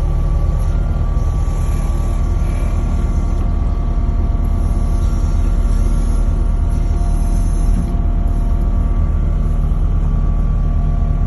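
Skid steer loader's diesel engine running steadily, a constant low drone.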